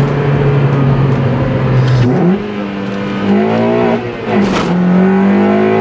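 Honda Civic Si's K24 four-cylinder engine, breathing through a full 3-inch exhaust, pulling steadily, then climbing in pitch. The revs drop sharply once, about four seconds in, as if at a gear change, and then climb again.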